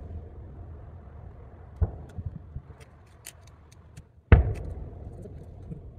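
Distant booms of large aerial firework shells (shakudama) bursting more than 4 km away. A smaller boom comes about two seconds in and a big one about four seconds in, each followed by a low rumble that fades.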